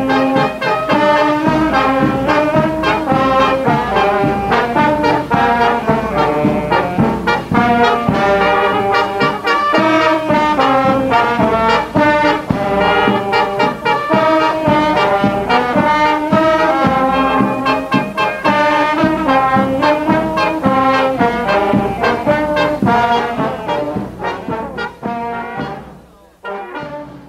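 Brass band music, with brass instruments playing a melody, fading out over the last few seconds.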